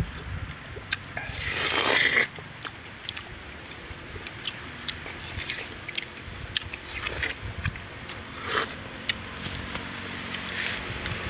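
Someone biting into and eating a slice of yellow watermelon: scattered short, wet crunches and bites. A louder rushing swell builds and cuts off about two seconds in.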